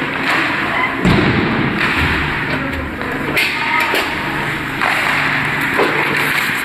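Ice hockey play: skates scraping the ice under a steady background noise, with a heavy thud about a second in and sharper clicks and knocks later from sticks and puck.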